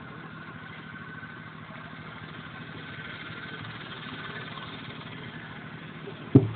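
Steady low hum and hiss, with one sharp thump near the end.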